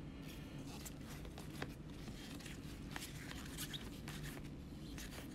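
Baseball cards being flipped through by gloved hands: faint rustling with a few soft clicks as each card slides off the stack, over a low room hum.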